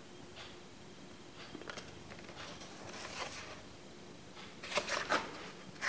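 Plastic blister pack with a card back, holding a miniature truck, being handled: faint crinkles and rustles, with a louder cluster of short crackles near the end.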